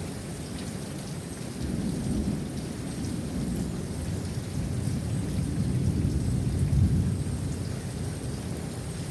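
Steady rain falling, with a long low rumble of thunder that swells about a second and a half in, peaks past the middle and then eases off.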